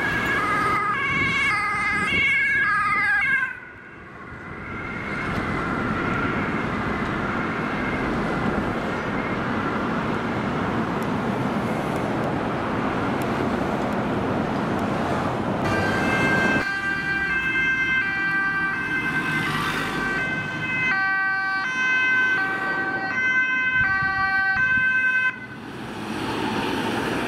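Emergency vehicles' two-tone sirens alternating between a high and a low note as they pass at speed. One spell cuts off a few seconds in and leaves a faint tail. A second siren starts about halfway through and cuts off near the end, with road traffic noise in between.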